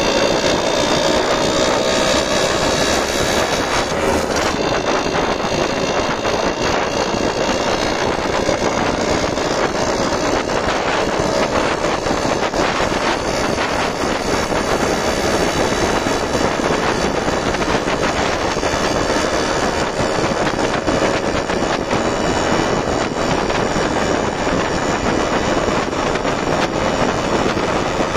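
Yamaha RX-series two-stroke single-cylinder motorcycle engine running steadily at cruising speed, its pitch drifting only slightly, with wind rushing past the microphone.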